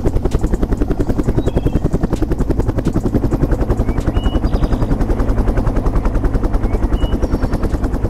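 Helicopter sound effect: rotor blades chopping rapidly and evenly over a steady engine drone.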